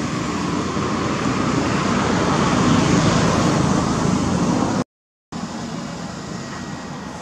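Steady rushing outdoor background noise that swells a little around the middle, drops out completely for about half a second about five seconds in, and comes back somewhat quieter.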